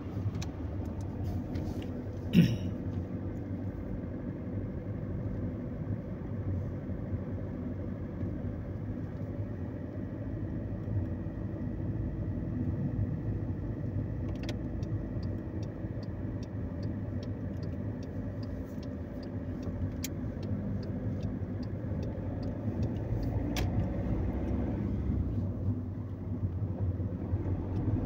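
Car interior: steady engine and tyre rumble of a car driving along, with one sharp thump about two seconds in. From about halfway, the turn-signal indicator ticks evenly, about two clicks a second, for some ten seconds and then stops.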